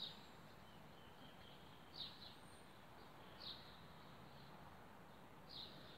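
Near-quiet background with a small bird giving short, high chirps, four of them, one every second or two.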